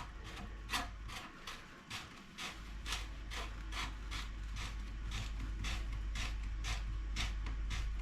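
Hand-tight plastic nut of a toilet flush valve being turned off its threads by hand, giving a short rasping scrape about twice a second, over a steady low hum.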